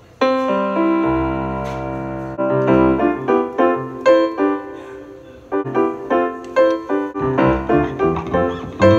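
Electronic keyboard with a piano sound: a chord struck just after the start and held for about two seconds, then short repeated chords in a bouncing rhythm, about three a second.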